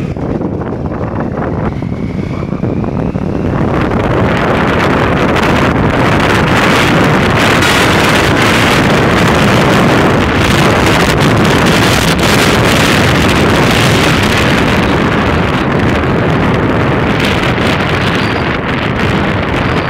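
Wind rushing over the microphone of a vehicle moving along a road, with road noise: a loud, steady rush that builds over the first few seconds.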